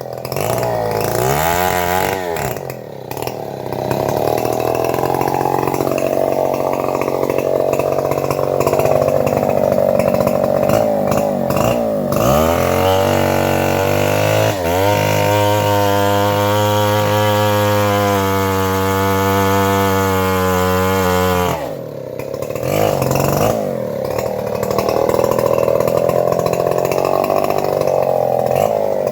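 Chainsaw engine running hard at high revs, its pitch rising and falling as it works, easing off briefly a few times before revving up again.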